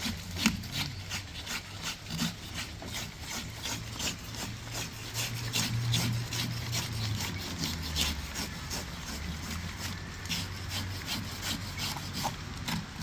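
Rhythmic hand scraping, repeated short rasping strokes at about three a second, like a blade scraping scales off a fish or grating coconut.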